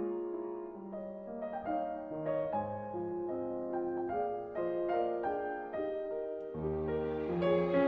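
Slow piano music: single notes over held chords, with deeper bass notes coming in about six and a half seconds in.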